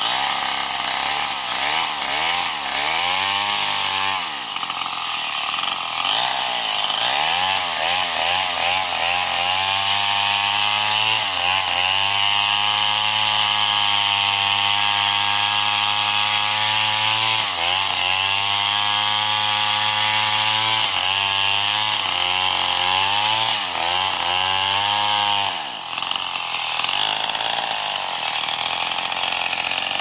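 Stihl chainsaw cutting into a felled log, its engine revving up and down again and again between long steady stretches at high speed. Near the end it drops back to a lower, idling speed.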